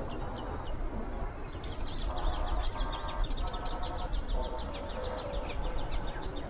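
Small birds chirping and twittering over a steady low rumble. From about two seconds in, a few short held pitched notes come and go.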